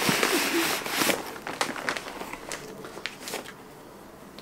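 Brown packing paper rustling and crinkling as a box is pulled out of its wrapping, with short scrapes and taps of cardboard. Loudest in the first second, then scattered handling noises that die away after about three and a half seconds.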